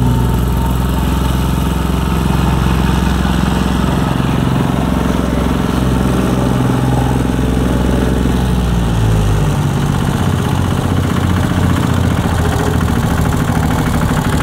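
Diesel engine and vibrating base plate of a BOMAG BPR 65/70 D reversible plate compactor running on gravel, a loud steady drone. About nine seconds in, the engine note falls and the deep rumble eases.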